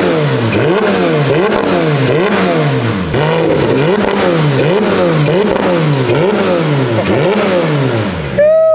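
Porsche GT3 flat-six being free-revved through a new aftermarket titanium exhaust, with the muffler deleted and the catalytic converters kept: quick repeated throttle blips, about one and a half a second, each rising and falling in pitch. The pattern breaks off near the end.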